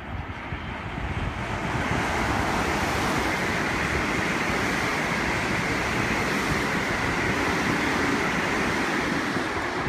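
JR West electric multiple-unit train passing through the station at speed without stopping: a rushing wheel-and-rail and air noise that builds over the first two seconds and then holds steady and loud.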